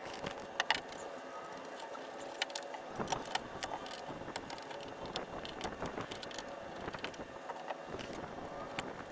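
Light, scattered clicks and rattles of small hardware and tools being handled while the old fish finder and its wiring are taken off the boat.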